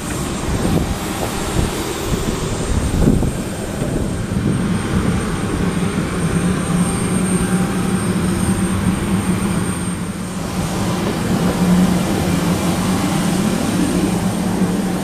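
Jet aircraft running on the apron: a steady low drone with a thin, high, even whine over it.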